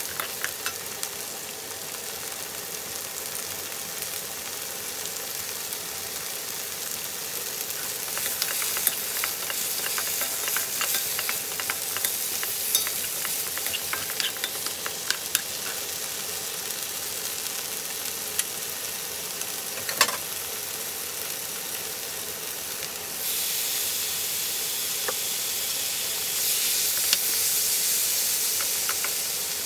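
Sliced onion and green chillies sizzling in a nonstick wok, stirred with a wooden spatula that makes scattered clicks and scrapes. About two-thirds of the way through, the sizzle turns suddenly louder and hissier as raw sliced beef goes into the hot pan.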